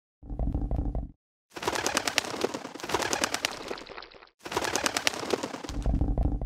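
A rapid rattling run of clicks, dubbed-in sound effect, in three stretches split by short silences, with a low rumble under the first and the last.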